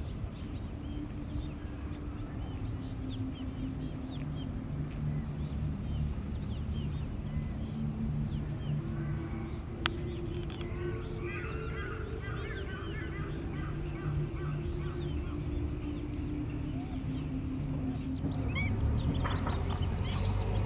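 Wetland birds calling, with a quick run of repeated calls about halfway through and busier calling near the end. Under them is a steady low hum, and a high thin tone pulses about once a second for most of the time. There is one sharp click about halfway through.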